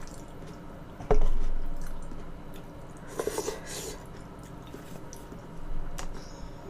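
Close-miked eating: wet chewing and squishing of food. A sudden loud knock comes about a second in and is the loudest sound, with a sharp click near the end.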